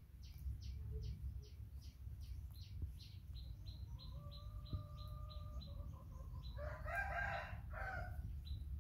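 A rooster crowing in the background, starting about halfway through and loudest near the end, over a bird's short high chirps repeated about three times a second and a steady low rumble.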